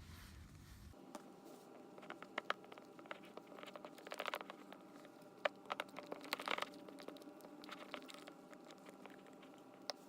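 Faint wet clicking and crackling of a mixing tool stirring foamy glue-based slime with baby powder, coming in irregular clusters.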